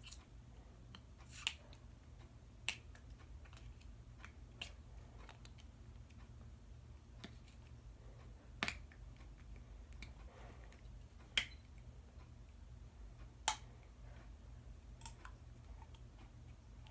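Fingers and fingernails picking at a metal staple on a package: scattered small sharp clicks, one every second or two, with soft scratching between them, over a faint low hum.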